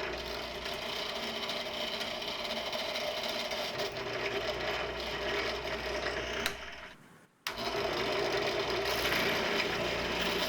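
Drill press motor and spindle running steadily while drilling out a broken screw. The sound fades and cuts out briefly about seven seconds in, then comes straight back.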